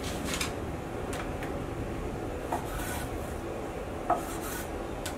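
Knife slicing through thin raw chicken breasts into portions: faint scraping with a few light taps.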